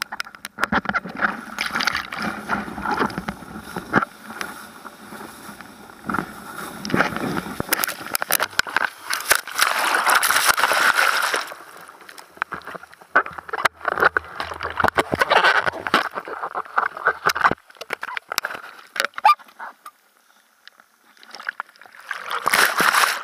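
Ocean whitewater rushing and splashing around a bodyboard-mounted camera as the board rides through broken surf, with sharp spattering crackles of water. It comes in surges, the longest and loudest about halfway through, dies down for a few seconds, then rises again near the end.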